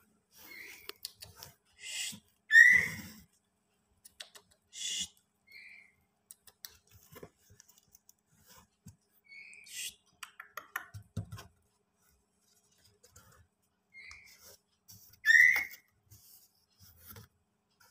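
A few short, high-pitched chirps and squeaks, two of them louder with a quick slide in pitch, about 2.5 seconds in and near the end. Scattered soft rustling and scraping between them.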